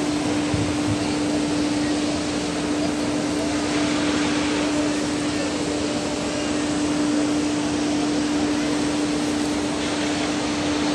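Steady rushing air with a constant droning hum from a running blower, unchanging throughout.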